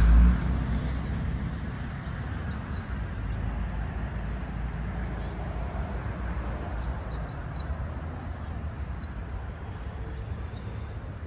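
Outdoor ambience: a steady low rumble, with faint short bird chirps in small groups now and then.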